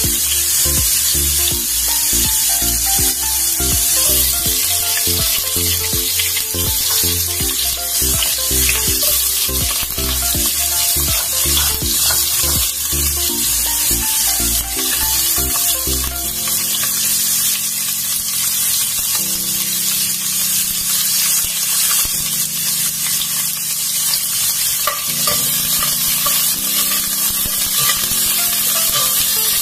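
Chopped garlic and onion sizzling steadily as they sauté in hot oil in a stainless steel pot. Background music plays under it, pulsing with a beat at first and changing to longer held notes about halfway through.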